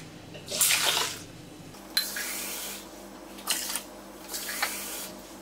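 Water being poured or run in several short spells, measuring out the cups of water for rice in a rice cooker.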